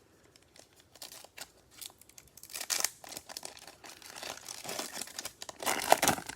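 Plastic wrapper of a football trading-card pack being torn open and crinkled by hand, in irregular crackling bursts, loudest near the middle and again near the end.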